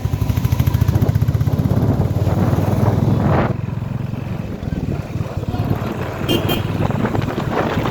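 Royal Enfield Bullet motorcycle's engine running as it rides, a fast low pulsing that is loud for the first three and a half seconds and then eases off.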